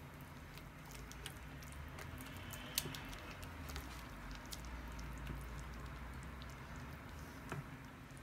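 Silicone spatula stirring a thick cream and cheese sauce in a nonstick pan: faint wet squelching with scattered light clicks of the spatula against the pan.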